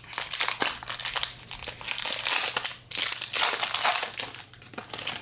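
Plastic-foil wrapper of a Bowman Chrome Jumbo baseball card pack being crinkled and pulled open by hand: a quick, irregular run of crackles and rustles.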